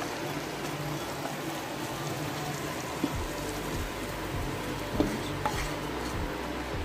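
Cooked masala cauliflower sliding out of a hot oily non-stick wok into a clay pot and being scraped out with a spoon, over a steady sizzle from the pan. The spoon knocks against the pan about three seconds in and again, louder, about five seconds in.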